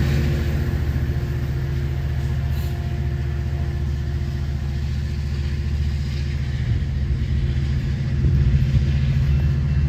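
Passenger train's diesel locomotive, an EMD F59PHI, running with a steady low rumble that swells slightly near the end.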